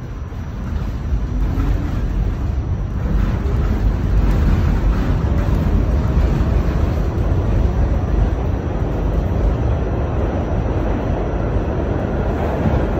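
New York City Subway B train running along the track, heard from inside the car: a steady low rumble that grows louder over the first few seconds, then holds.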